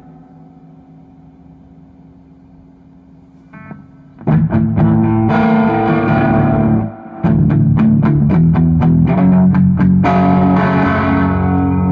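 Electric guitar (Gibson SG) through a Timmy-clone overdrive pedal set for a crunch tone, with gain up and volume backed off, into a Fender Super Reverb amp. A chord fades out quietly, then about four seconds in loud distorted chords are strummed. They stop briefly near seven seconds, then come back as choppy strums and ringing chords.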